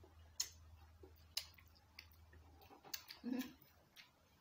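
Faint eating sounds as spaghetti is eaten with plastic forks: a few sharp clicks and smacks about a second apart, with a short low sound about three seconds in.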